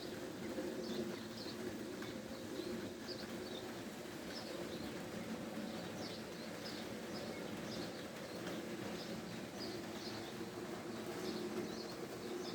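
Short high chirping calls, one to three a second at irregular spacing, over a steady low hum.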